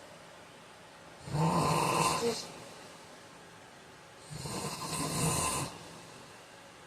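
A man snoring in his sleep: two loud snores about three seconds apart, each lasting about a second.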